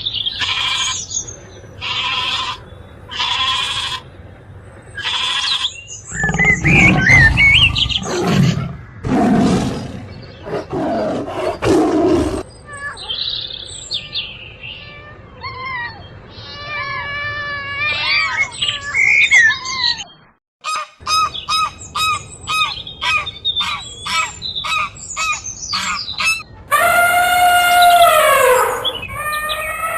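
A string of different animals' calls, one clip after another: repeated short calls at first, loud low calls in the middle, then a fast run of repeated calls and long pitched calls near the end.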